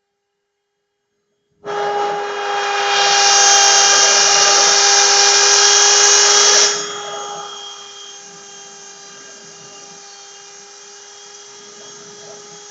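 CNC router running. It comes on suddenly about a second and a half in with a steady multi-tone whine, grows louder for about four seconds, then drops sharply to a quieter steady running sound.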